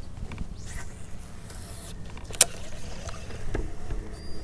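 Electric trolling motor running with a low, steady hum, and a single sharp click about two and a half seconds in.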